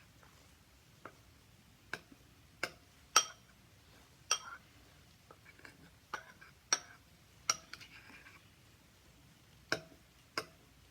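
A spoon clinking against a bowl while stirring a paste of aloe vera, wheat flour, honey and lemon juice: about ten sharp, irregular clinks, each with a short ring, and a pause shortly before the end.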